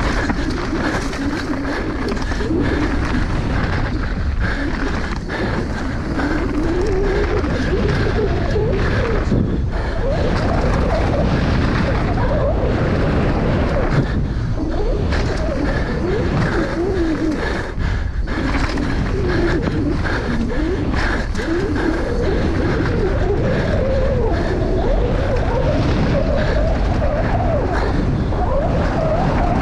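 Mountain bike running fast down a dirt downhill track: a continuous rush of tyre, drivetrain and wind noise on the camera microphone, with a hum that wavers up and down in pitch as speed changes.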